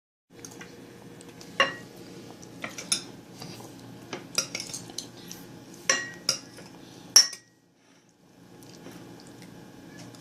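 Spoon clinking and scraping against a dish as a toddler feeds herself rice and lentils: irregular sharp clinks, some ringing briefly, with a short lull about seven and a half seconds in.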